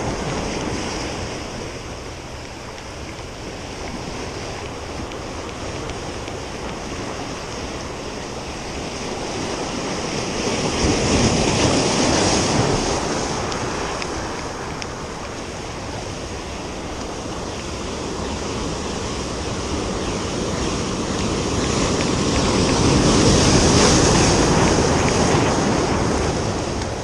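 Surf breaking and washing over a rocky shore, a steady rush of water that swells twice, about midway and near the end, as waves come in. Wind buffets the microphone.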